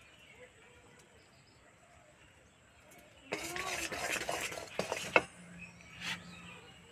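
Metal kitchenware scraping and clinking for about two seconds, starting about three seconds in, ending in a sharp metallic tap, with a lighter tap about a second later.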